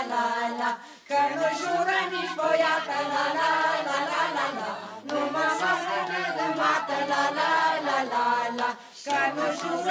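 Romanian folk song sung on wordless 'la la la' syllables, with short breaks for breath about a second in and again near the end.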